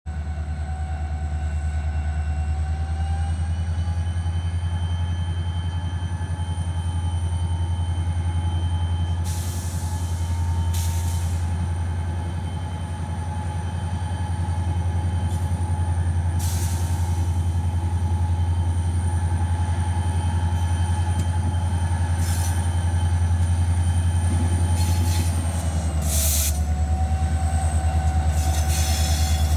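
Diesel road locomotive leading a freight train of tank cars at walking pace: a deep steady engine drone, with a steady high-pitched wheel squeal over it and a few sharp clanks along the way.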